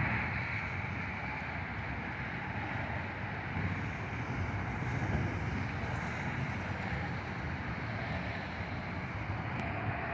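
Jet aircraft engine noise at a distance: a steady broad rumble with a hiss.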